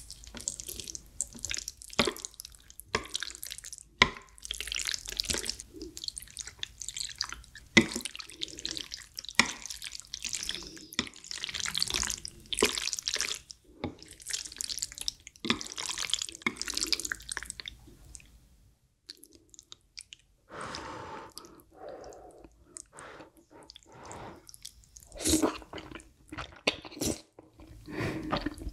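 Chopsticks stirring udon noodles through a thick, creamy sauce on a plate, close to the microphone: sticky, squelching wet sounds in quick irregular bursts. After a short pause near the middle, noodles are slurped and chewed.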